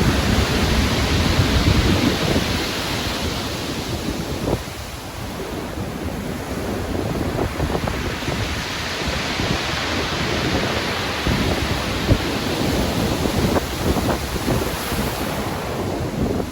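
Stormy sea: waves surging and breaking in strong wind. A heavy surge in the first few seconds eases to a steady rush of surf with small crackles.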